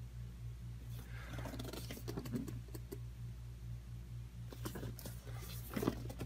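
Cardboard retail box being handled and turned over in the hands: light scraping, rubbing and tapping of the cardboard in two spells, about a second in and again near the end, over a steady low hum.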